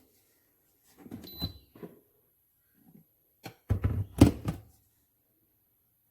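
Knocks and thumps of objects being handled: a short cluster about a second in, then a louder run of knocks a little past the middle.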